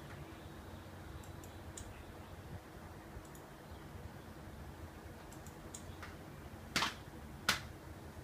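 Button clicks from the handheld controller used to move the cursor through a TV streaming menu. Several faint clicks come first, then two sharper clicks near the end, less than a second apart, as a title is selected and starts loading.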